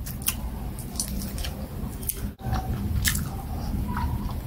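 Close-up wet chewing of soft plantain fufu with black soup, with many short sharp mouth clicks and a brief pause about halfway.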